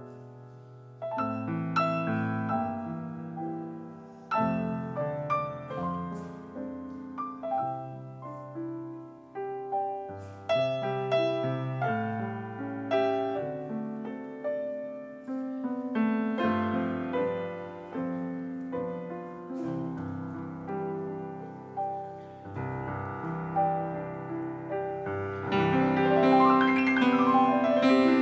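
Background piano music: a steady run of struck notes with chords underneath, growing fuller and louder about three-quarters of the way through.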